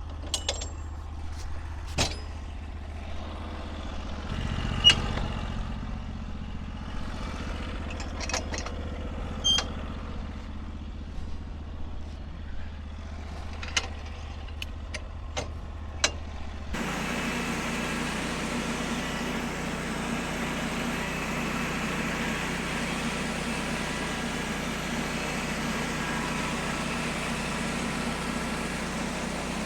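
An engine running steadily with a few sharp knocks and clicks over it. About seventeen seconds in, the sound switches abruptly to a louder, hissier steady machine noise.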